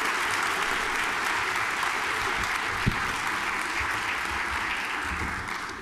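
Large seated audience applauding steadily, dying away near the end.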